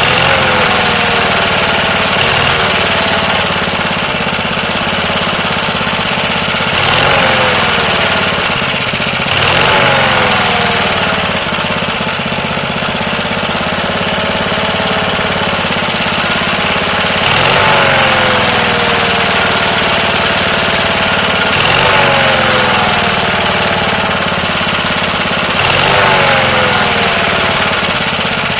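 Walk-behind lawnmower engine running with hydrogen-oxygen (HHO) gas from an electrolysis generator fed into its air intake as a gasoline booster. Every few seconds its speed surges up and then drops back, about eight times.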